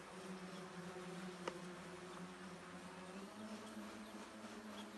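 Distant homebuilt electric rotorcraft with 12-inch propellers, heard as a faint steady buzzing hum whose pitch steps up slightly about three seconds in.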